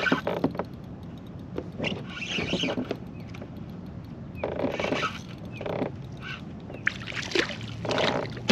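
A hooked sheepshead being reeled in beside a kayak: irregular bursts of splashing and line-handling noise, the strongest near the middle and near the end.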